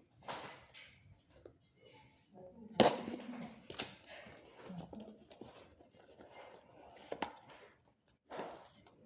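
Hands handling a phone and its packaging: irregular rustling, clicks and light knocks, with a sharp knock about three seconds in and smaller ones at about four and seven seconds.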